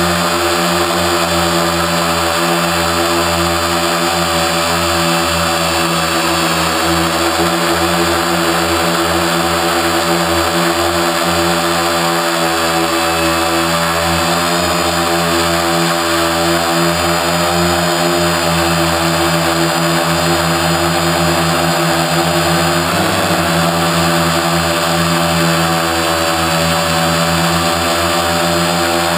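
Quadcopter's electric motors and propellers running steadily in flight, heard up close from the onboard camera: a loud drone of several steady tones that drift slightly in pitch, with a brief wobble about three-quarters of the way through.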